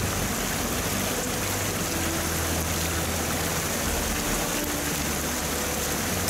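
Shallow mountain creek rushing over stones as a hiker wades through it in water shoes; a steady hiss of water.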